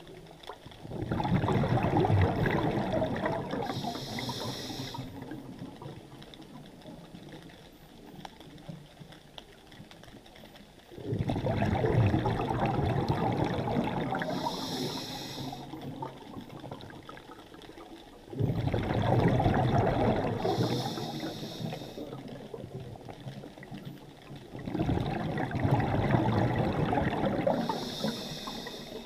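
A scuba diver breathing through a regulator underwater: four bursts of exhaled bubbles, each starting suddenly and fading over several seconds, with a short hiss between them. The cycle repeats about every seven seconds.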